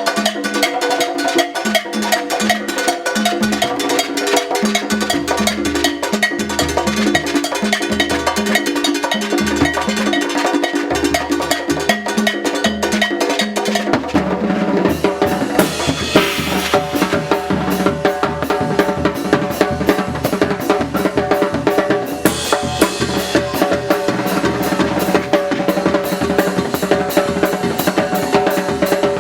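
Oaxacan brass band playing a fast muerteada carnival rhythm, with drums, cymbals and congas driving a steady beat under held brass notes. The band changes about 14 seconds in, with cymbal crashes near 16 and 22 seconds.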